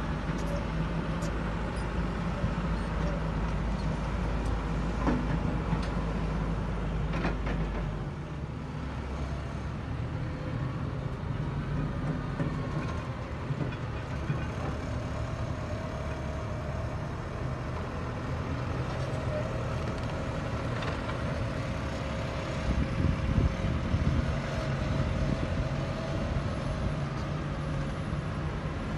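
Diesel engines of a Hidromek 300 excavator and a Hidromek HMK 102S backhoe loader running steadily under load while digging and shaping a slope, with a few sharp knocks about 5 and 7 seconds in. The deep rumble drops away about 8 seconds in.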